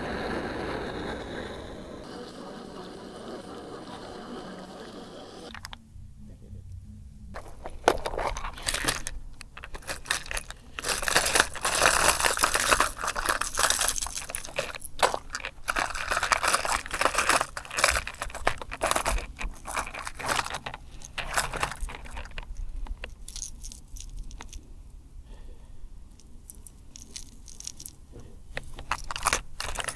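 A gas canister camping stove burning with a steady hiss under a pot. After a sudden change, hard plastic fishing lures and their metal treble hooks rattle and click against each other and the plastic tackle box as they are sorted by hand, in a dense run of small clicks and jangles.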